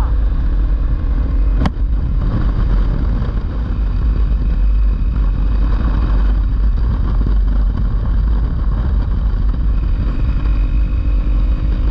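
Honda CRF250L single-cylinder four-stroke engine running steadily while riding at cruising speed on a dirt road, mixed with heavy wind buffeting on the microphone. One sharp click about 1.7 seconds in.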